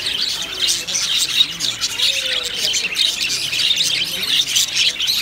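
A flock of budgerigars chattering and chirping nonstop, many short, high chirps overlapping into a dense, steady twitter.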